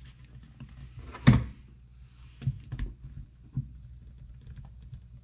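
Cedar birdhouse pieces and a tool being handled on a workbench: one sharp knock about a second in, then a few lighter clicks and taps.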